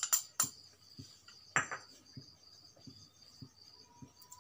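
A ceramic saucer clinking and scraping against a steel plate as spice powders are tapped out of it onto the fish: a few sharp clinks at the start and a louder scrape about a second and a half in, then soft taps. A cricket chirps steadily in the background.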